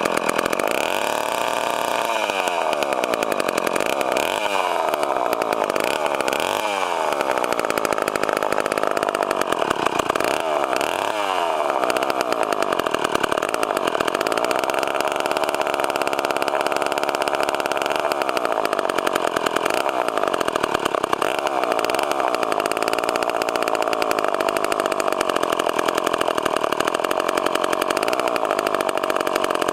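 Freshly rebuilt Poulan 306A two-stroke chainsaw running: revved up and down about four times in the first twelve seconds, then settling to a steady idle.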